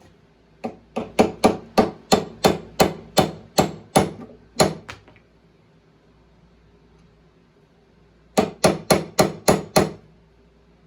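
Hammer blows struck in quick succession: about a dozen sharp strikes over four seconds, a pause, then six faster strikes near the end.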